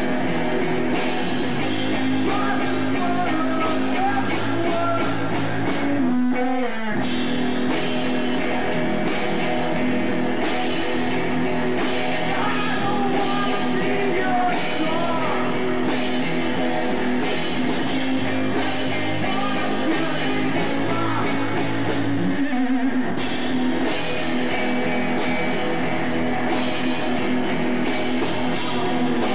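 Rock band playing live: electric guitars over a drum kit with a steady beat. The band breaks off briefly together twice, about six seconds in and again a little past twenty-two seconds, then comes back in.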